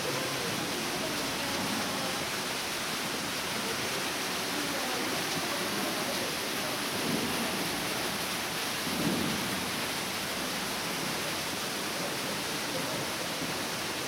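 Manai Falls, a waterfall dropping into a deep gorge pool, giving a steady, even rush of falling water.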